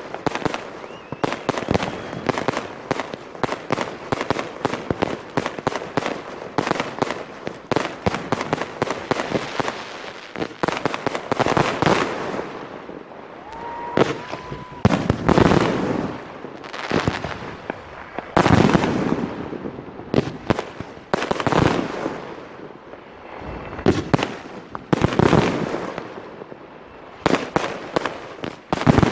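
Aerial fireworks shells bursting: many sharp bangs and pops in quick succession, with heavier bursts every few seconds in the second half.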